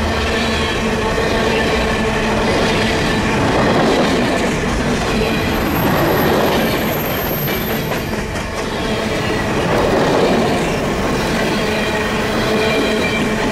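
Canadian Pacific freight train passing, its steel wheels squealing on a sharp curve, with several high squeal tones held over the steady rumble and clatter of the wheels on the rails.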